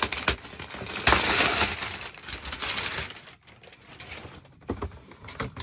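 Shiny wrapping paper being crumpled and pulled off a gift box: a dense crackling rustle, loudest about a second in, that dies away after about three seconds. A few light knocks follow near the end as the cardboard shoebox is handled.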